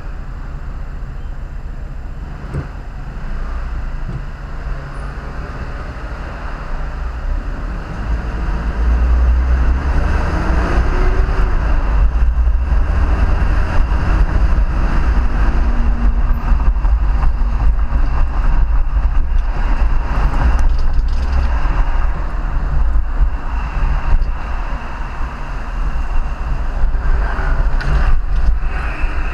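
Moving motor vehicle: a steady low engine and road rumble that grows louder about eight seconds in and stays loud.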